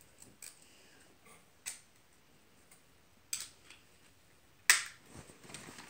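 Medical tape and dressing being handled while a toe is bandaged: a few sharp clicks and ticks spread through, the loudest about three-quarters of the way in, followed by a short rustle.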